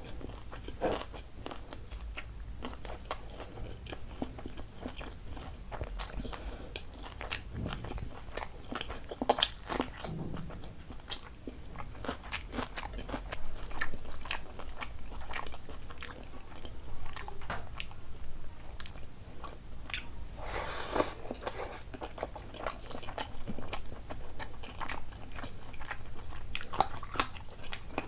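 A person eating close to the microphone: chewing and biting with frequent short crunches and clicks, with a denser run of crunching about twenty seconds in.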